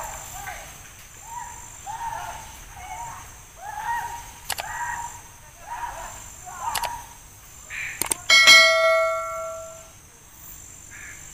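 Subscribe-banner sound effects: mouse clicks, then, about eight seconds in, a bell chime that rings out for over a second and is the loudest sound. Under them, short calls repeat about once a second over a steady high insect drone.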